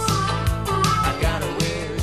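Background rock music with a steady beat of drum hits and held notes.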